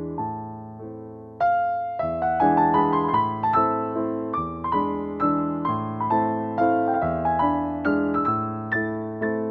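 Background piano music: a gentle, melodic piece of struck notes that ring and fade, growing fuller and louder about a second and a half in.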